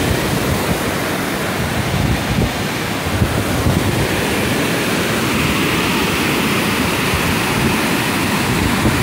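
Muddy floodwater rushing in a fast torrent and spilling over a drop in a wide sheet: a loud, steady rush of water.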